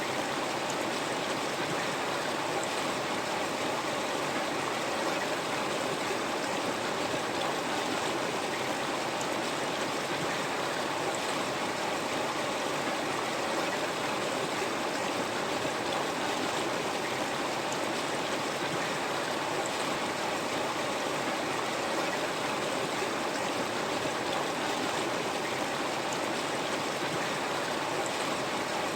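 River water flowing over rocks, a steady rushing with no change in level.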